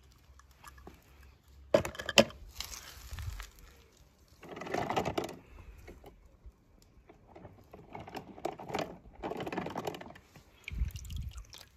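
Irregular clicking, rattling and scraping of small hard objects being handled, in scattered bursts, with a low thump near the end.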